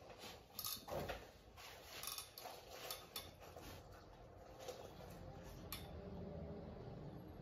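Faint clicks and light knocks, closest together in the first three seconds, then a faint steady low hum.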